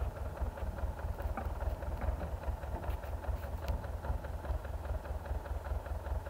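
Engine of a homemade tractor idling steadily, with an even, rapid chugging beat.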